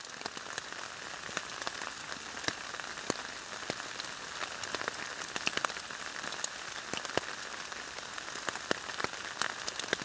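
Steady rain falling on the forest, an even hiss with many sharp, irregular hits of single drops landing close by.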